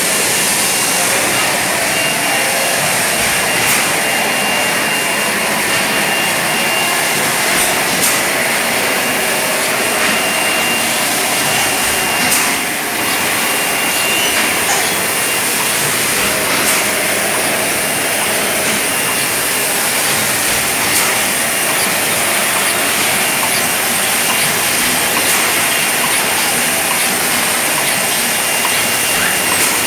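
Water-bottling plant machinery running: a steady loud hiss and hum with a faint constant whine and a few light clicks.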